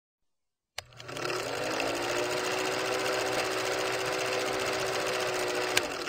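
Film projector running: a click, then the motor whines up to speed and the film mechanism clatters rapidly and steadily, with another sharp click shortly before the end.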